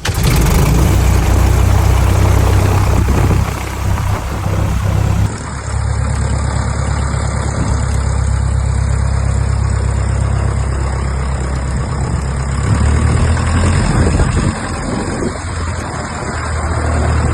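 Cub light aircraft's piston engine catching right after being made hot with the throttle cracked, then running steadily at low power with an even, rapid pulse.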